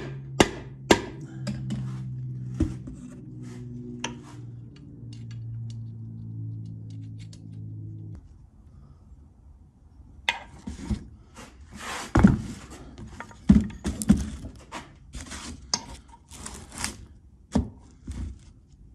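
Mallet taps on a steel shaft being driven into a cast-iron transmission case, a few sharp strikes in the first second and lighter taps after, then irregular metal knocks and clinks as the shaft and case are worked.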